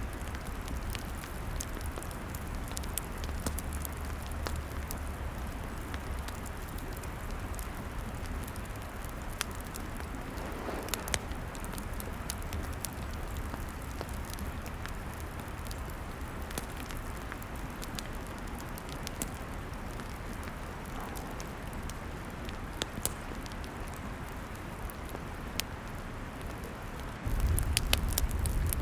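Log fire crackling: scattered sharp pops and snaps over a steady hiss and low rumble. The low rumble suddenly gets louder about a second and a half before the end.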